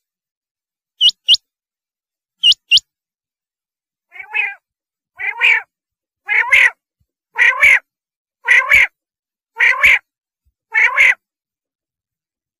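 Recorded rain quail calls: two sharp, high double notes, then a run of seven harsher, lower calls about a second apart that grow louder.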